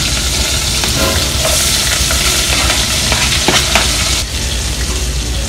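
Hot oil sizzling in a pot with shrimp as chopped onion, garlic, tomato and chili are scraped in from a cutting board with metal tongs. A few sharp clicks from the tongs against the board and pot sound over the sizzle.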